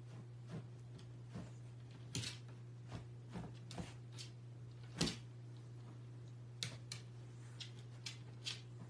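Beagle puppy pushing a plush pet bed across a wooden floor: scattered light taps and clicks of its paws and the bed on the floor, with one louder knock about five seconds in, over a steady low hum.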